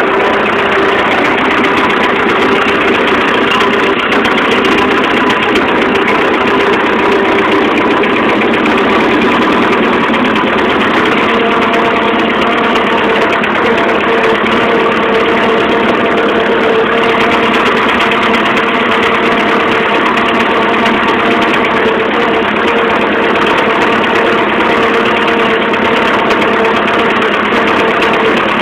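Fordson Major tractor engine running steadily while driving, heard loud and close from the driver's seat. Its pitch steps up slightly about a third of the way in.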